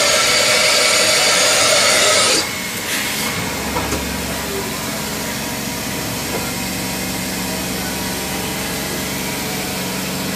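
Compressed-air blast from a Mazak VTC-30C CNC vertical machining centre, hissing loudly for about two and a half seconds during an automatic tool change, then a brief second puff. After that the machine runs with a steady hum and a low drone that comes in a little later.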